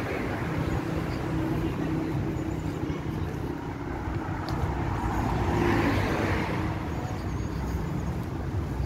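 City street traffic: a steady hum of car engines and tyres on the road alongside, swelling briefly a little after the middle as a vehicle goes by.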